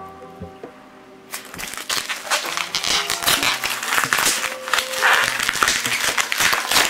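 Bubble wrap being pulled and unwrapped from a boxed die-cast model, crinkling and crackling with many small clicks, starting about a second in.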